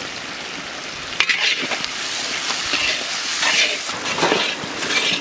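Sliced onions sizzling in hot mustard oil in a metal kadai, just salted, while a spatula stirs them. The sizzle is a steady hiss that grows a little louder, with a few light scrapes of the spatula.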